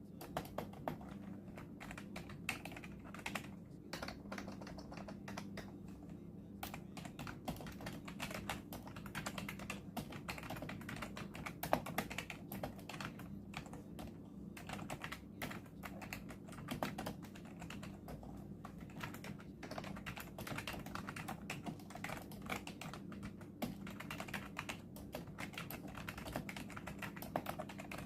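Continuous typing on a gaming keyboard: a rapid, irregular stream of key clicks with no pauses of note.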